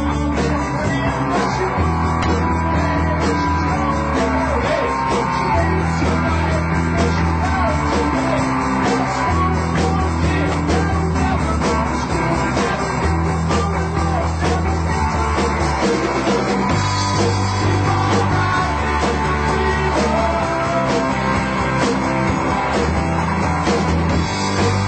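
A live rock band of electric guitars, bass and drums playing, with a steady loud mix and the bass changing notes about every two seconds.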